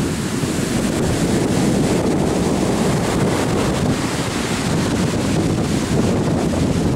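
Heavy surf after a storm: big waves crashing and foaming up the sand and over rocks in a steady wash, with wind buffeting the microphone.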